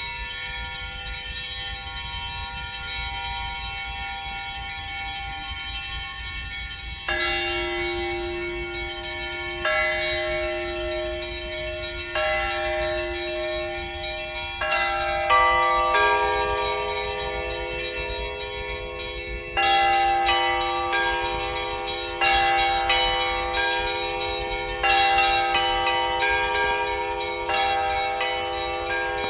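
Russian Orthodox church bells ringing: a first tone rings on alone, then bells are struck in turn about every two and a half seconds, each ringing on under the next, with more bells joining about halfway through so the peal grows fuller and louder.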